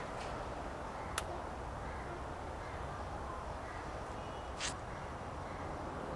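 Crows cawing over steady outdoor background noise, with a sharp click about a second in and a short hiss a little past the middle.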